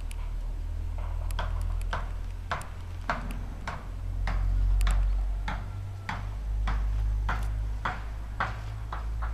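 Regular footsteps on dry ground, a little under two steps a second, over a steady low rumble of wind on the microphone that swells about halfway through.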